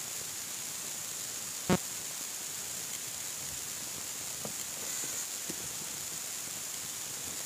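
Steady hiss from the stage microphone and sound system, with one sharp knock about two seconds in and a few faint taps later, as the microphone on its stand is handled while it changes hands.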